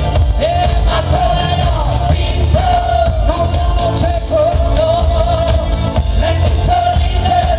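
Live pop dance band playing through a loud PA, with a singer holding long notes over a heavy bass beat.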